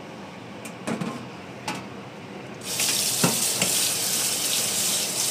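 A few light metal clinks as a metal colander is set in a stainless steel sink. About two and a half seconds in, the kitchen tap is turned on and water runs steadily into the sink, with a couple of knocks under the stream.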